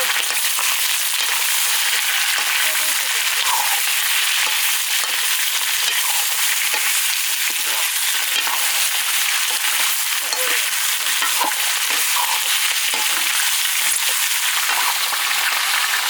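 Broiler chicken pieces frying in hot oil in a karai, a steady sizzle with a few faint scrapes and clinks from stirring.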